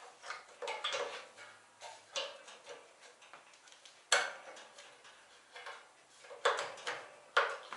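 Light metal clinks and knocks of the sanding-belt guard being fitted against a belt sander's frame, with a sharp knock about four seconds in and two more near the end.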